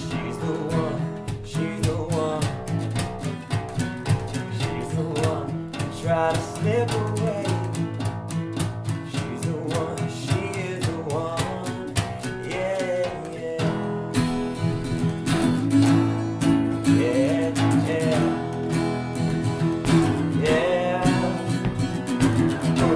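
Three acoustic guitars strummed together in a steady folk-rock rhythm.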